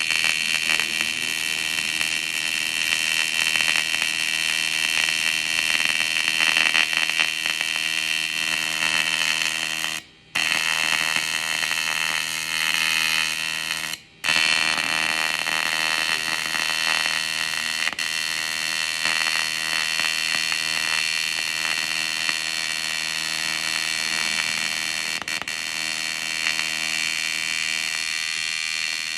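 AC TIG welding arc on aluminum, a steady high-pitched buzz that cuts out briefly twice.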